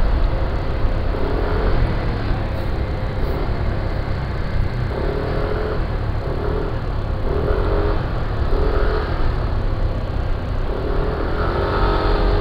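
Yamaha NMAX scooter riding in city traffic: a steady low rumble of engine and road, with short pitched engine notes coming and going every few seconds.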